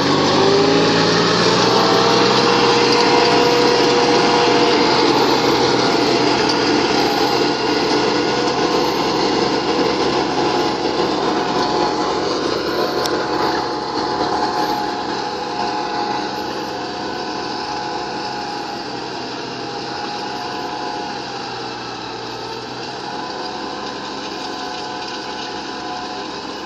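Compact tractor's engine running under load while its rotary tiller churns soil, the engine pitch rising just as it begins. The sound then grows gradually quieter as the tractor moves away.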